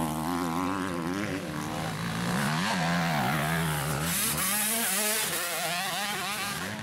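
Motocross bike engines revving, their pitch rising and falling repeatedly with the throttle, several engines overlapping.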